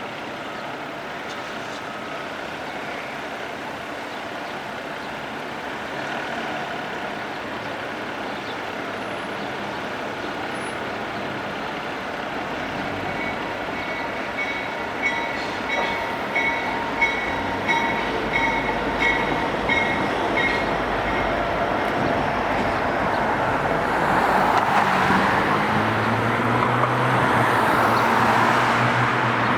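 Downtown street traffic with a steady hum of passing vehicles. About halfway through, a run of short, evenly spaced electronic beeps sounds for several seconds; near the end a large vehicle comes close and grows louder, its engine hum low beneath the road noise.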